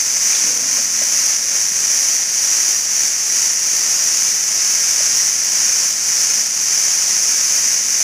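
Dense chorus of cicadas: a steady, high-pitched shrill hiss that runs without a break.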